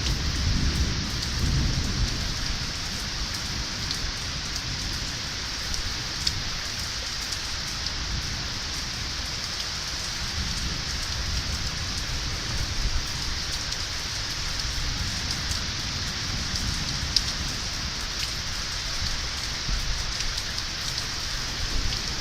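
Steady rain falling in a thunderstorm, with faint scattered drop ticks. A low rumble of distant thunder is heard at the start and again near the end.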